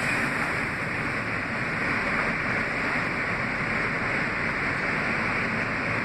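A Kawasaki R160B subway train with Siemens propulsion, heard from inside the car, running at steady speed: an even rush of wheel and track noise with no changes.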